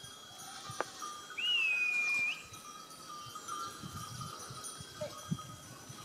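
Bells on a herd of goats ringing faintly and steadily; about a second and a half in, a loud whistle is held for about a second at one high pitch, with a quick rise at the start and a small upturn at the end.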